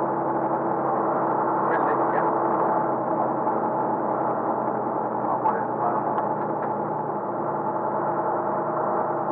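An old truck's engine running at a steady speed, a constant drone made of several unchanging tones.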